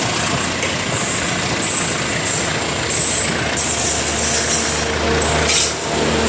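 Train running at a station: a steady rumble with thin high-pitched squeals, and a brief louder rushing sound about five and a half seconds in.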